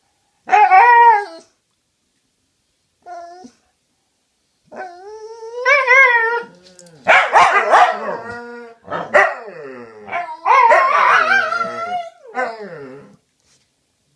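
Two dogs vocalizing back and forth in a string of drawn-out, wavering howl-like calls and whines, with the loudest and roughest calls about halfway through. The calls stop about a second before the end.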